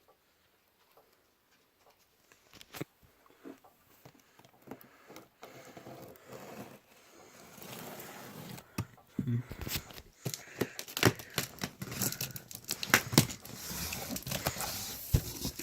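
Cardboard box being opened: scattered clicks and knocks at first, then from about eight seconds in louder rustling, tearing and crinkling of tape, paper and cardboard with many sharp clicks.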